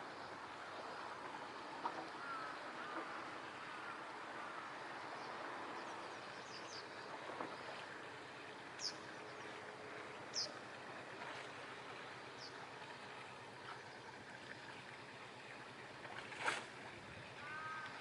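Harbour water lapping and washing steadily against the quay and moored boats in a fishing port, faint and even. A few short high chirps come about halfway through, and a sharp knock near the end.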